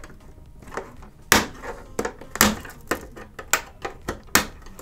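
Plastic snap clips of an Xbox One S bottom cover popping loose as a metal pry tool works along the front edge: a string of sharp clicks and snaps, about five loud ones among fainter ticks.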